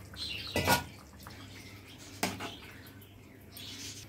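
Thin fish curry in an aluminium pot making soft liquid sounds as it is worked, with two short knocks of a metal spatula against the pot, the first a little over half a second in and a sharper one about two seconds in.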